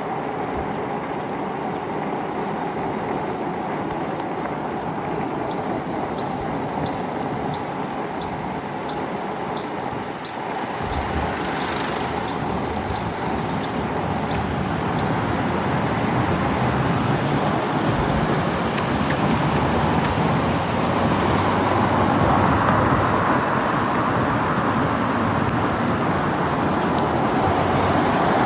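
Steady wind and road noise of riding through rain in traffic, growing louder in the second half. A faint regular ticking, a little over one tick a second, runs for several seconds near the start.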